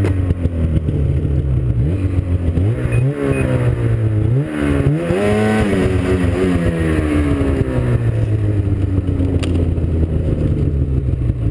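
Snowmobile engine under hard throttle climbing a steep hill, revs rising and falling several times, peaking about five seconds in, then holding steady.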